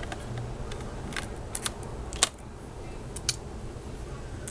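Several short, sharp clicks and taps of plastic laptop parts and small tools being handled during reassembly, the sharpest about two seconds in, over a steady low hum.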